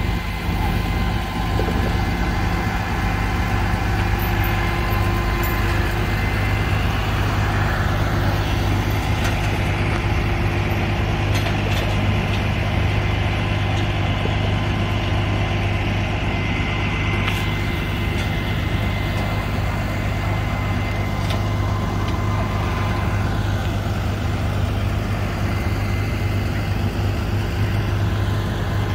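Heavy tow truck's diesel engine idling steadily, a constant low hum that does not change.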